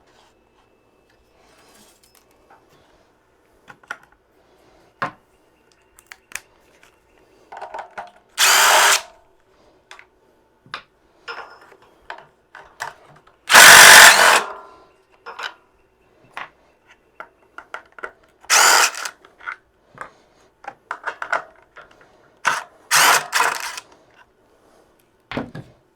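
A handheld power drill or driver run in four short bursts of about a second each, with small clicks and knocks of metal parts being handled in between.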